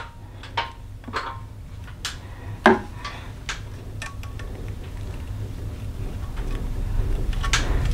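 Scattered metallic clicks and taps from hose clamp pliers and a spring hose clamp as the clamp is opened and worked onto a small rubber hose, with one sharper click about three seconds in.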